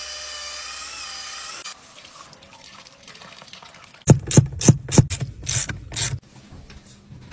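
A power drill with a brush attachment spinning against foamed exhaust tips, a steady hiss with a wavering whine, for the first second and a half. About four seconds in comes a run of about eight sharp clicks over two seconds from a ratchet wrench working a car seat-rail bolt.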